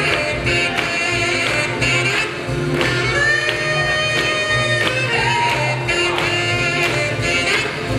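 Upbeat boogie-woogie dance music with a singer over a steady, driving beat.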